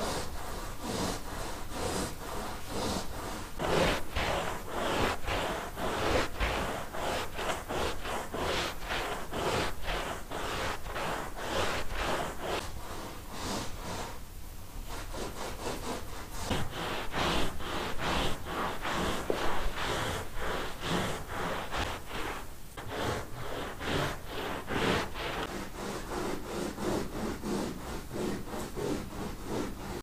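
A cloth rubbed by hand back and forth over a pile rug in quick, rhythmic scrubbing strokes, about two or three a second, with a short pause about halfway.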